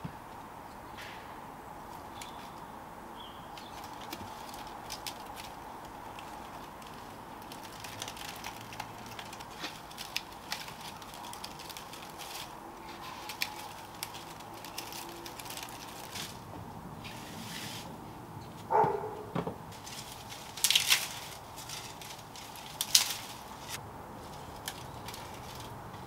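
Dry palm leaflets crackling and rustling as they are handled and woven by hand, with scattered light crackles and a few louder rustles about 19, 21 and 23 seconds in.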